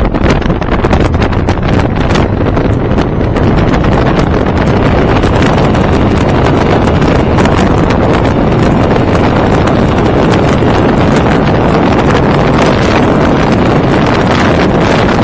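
Loud wind noise buffeting the microphone of a camera riding on a Honda VFR1200F motorcycle at speed. It is crackly and gusty for the first few seconds, then settles into a steady rush.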